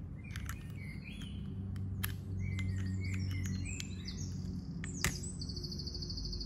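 Small birds chirping and trilling in the background, short rising and falling calls with a buzzy trill near the end. A few light clicks come from the plastic test pen being handled and set down on a pocket scale, over a low steady hum.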